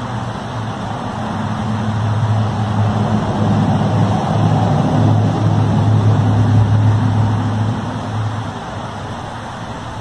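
A low, steady droning hum with a fainter higher tone above it. It swells over several seconds and fades away near the end, over a constant rushing background. This is one of the unexplained 'strange sounds from the sky', with no known source.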